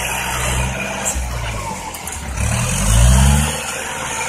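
Farm tractor's diesel engine working as it pushes soil with its front blade; about two seconds in it revs up, rising in pitch to its loudest about three seconds in, then settles back.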